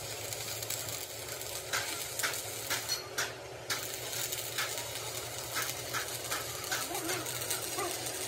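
Light clicks at irregular intervals, starting about two seconds in, over a steady hiss and low hum.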